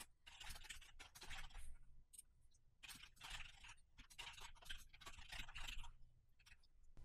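Faint computer keyboard typing: quick, irregular runs of keystroke clicks with short pauses between them.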